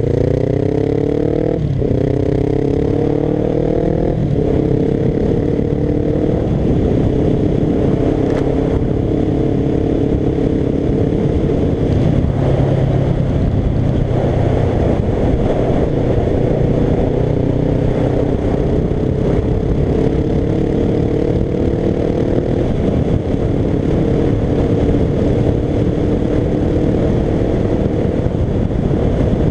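Suzuki GS500's air-cooled parallel-twin engine through a Dominator GP1 aftermarket exhaust, pulling up through the gears: the revs climb and drop back at two upshifts in the first few seconds. After that it cruises at near-steady revs, with small rises and falls in pitch.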